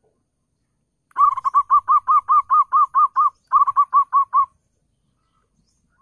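Zebra dove (perkutut) singing its staccato cooing song: a fast string of short, arched notes at about five a second, a brief break, then a shorter run of six notes.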